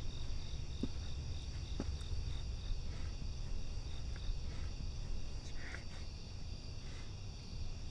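Insects, such as crickets, chirping in a steady high chorus over a low, even rumble.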